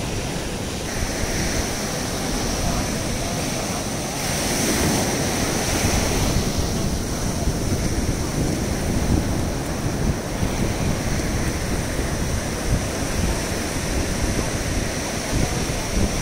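Sea surf washing onto the beach, a steady rush of waves, with wind buffeting the microphone.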